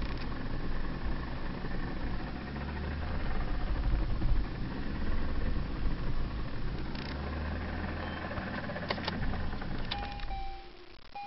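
VAZ-2111's four-cylinder engine running as the car creeps along on its first drive after being restarted, heard inside the cabin, with a steady low rumble. The engine sound drops away about ten seconds in, and a couple of short electronic beeps follow.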